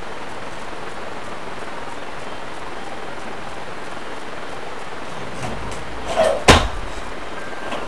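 Steady background hiss while a barbell power snatch is set up, then, as the bar is pulled, a short rattle and one sharp loud bang about six and a half seconds in as the lift is caught.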